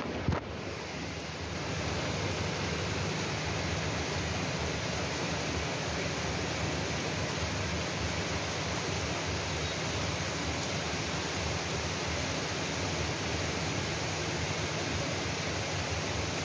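Rain falling in a steady, even hiss, with a short knock just after the start.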